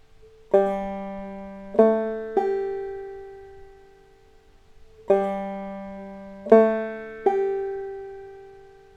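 Clawhammer banjo played slowly, a three-note phrase played twice: open 3rd string, the 3rd string at the 2nd fret a step higher, then the high 5th string an octave above. Each note rings out and fades before the next. This is the lead back to the G chord.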